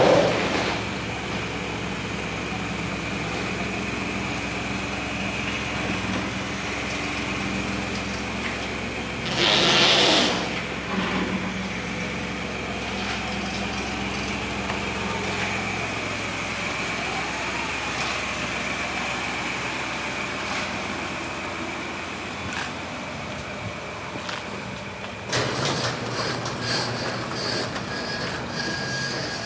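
A Ford F-150 pickup idling steadily, with a short loud burst of hiss about ten seconds in. A little before the end the sound changes abruptly.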